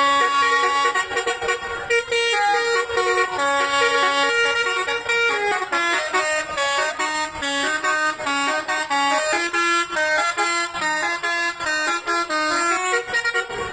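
Bus telolet horn, a set of air-horn trumpets, playing a tune: several steady tones sound together and step from note to note without a break.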